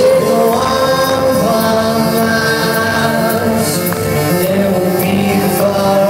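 Rock band playing live, heard from among the audience: sung vocals over electric guitar and drums, with regular cymbal strokes.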